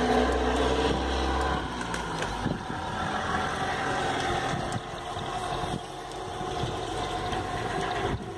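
Electric valve actuator's motor running steadily as it drives the butterfly valve from about a quarter to half open in response to a rising 4–20 mA signal.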